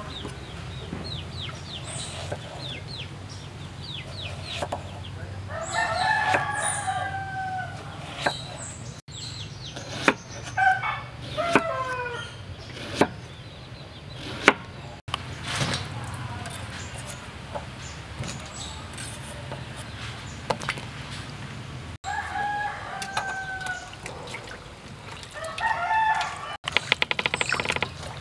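A large knife slicing an eggplant into rounds on a wooden chopping block, giving sharp single knocks now and then, while roosters crow several times in the background. Near the end, hands swish the slices in a bowl of water.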